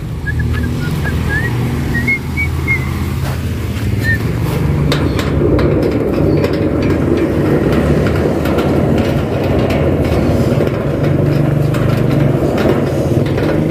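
A motor vehicle engine running steadily, growing louder about five seconds in. A few faint high chirps come in the first few seconds.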